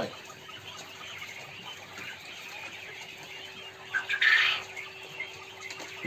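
Chickens calling in the coop, with one short, loud, harsh squawk about four seconds in, over a faint steady hum.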